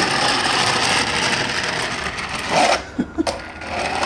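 3D-printed plastic gear-bearing skateboard wheels rolling with a rough, continuous mechanical rattle that stops short about three seconds in, followed by a few light knocks. The gear bearings bind, so the wheels barely turn.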